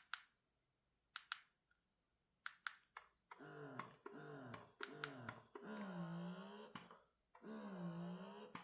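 Eufy S1 Pro wearable breast pump: a few sharp clicks, then about three seconds in the motor starts pumping in cycles, a whine that dips and rises in pitch with each suction stroke. The first cycles come about twice a second, then they slow to about one every second and a half.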